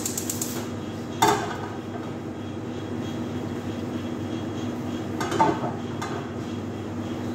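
Two sharp metal clanks of cookware, a frying pan and a pot being handled on a gas stove, about a second in and again about five seconds in, each ringing briefly. A steady machine hum runs underneath.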